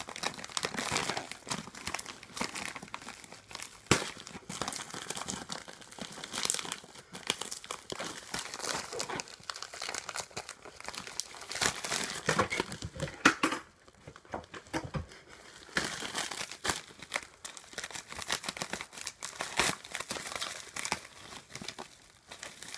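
A mail-order package being opened by hand: its wrapping crinkling and rustling, with some tearing, in irregular handling noises and sharp crackles, pausing briefly about fourteen seconds in.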